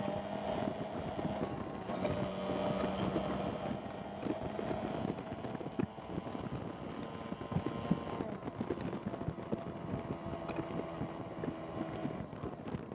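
Small single-cylinder motorcycle engine of a Honda CB 125 F running under load on a climb, its pitch shifting up and down with throttle, with wind buffeting the helmet- or bike-mounted microphone.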